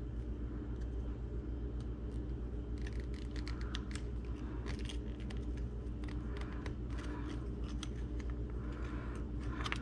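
Small metallic clicks and scrapes of snap-ring pliers working a C-clip at the top of a Koni coil-over shock, scattered irregularly from about three seconds in, over a steady low hum.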